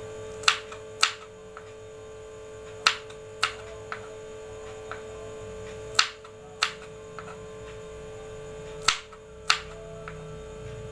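Kitchen knife slicing bird's-eye chillies on a wooden cutting board: about nine sharp knocks of the blade striking the board, irregular and often in pairs, over a steady hum.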